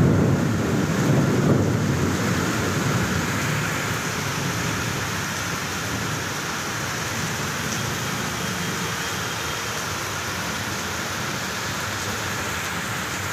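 Heavy rain pouring onto wet pavement and foliage in a dense, steady hiss, with a low rumble swelling over the first two seconds.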